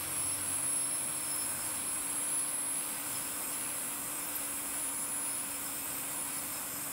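Steady whooshing hiss of a surgical smoke evacuator drawing air through its nozzle, with a low steady hum under it, clearing the plume as a radio wave surgery tip burns down a mole.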